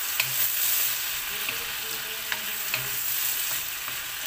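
Chopped vegetables sizzling in a wok as a wooden spatula stirs them, with a steady hiss and about five light taps of the spatula against the pan.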